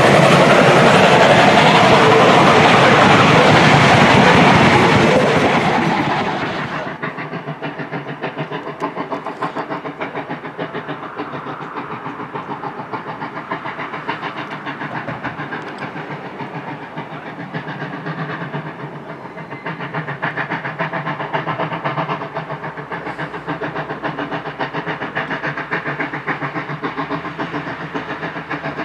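Passenger coaches of a passing train rolling close by, wheels clattering over the rail joints. About six seconds in it cuts to a South African Railways class 19D steam locomotive working hard up a grade, heard from across a valley as a steady run of rapid exhaust beats.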